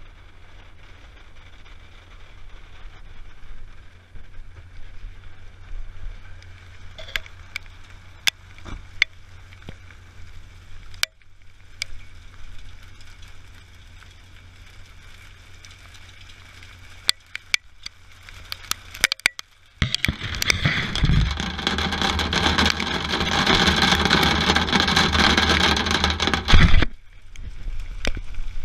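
Rain, with scattered drops ticking sharply on the camera housing over a steady low rumble; about twenty seconds in a loud hiss of rain sets in for several seconds and cuts off suddenly.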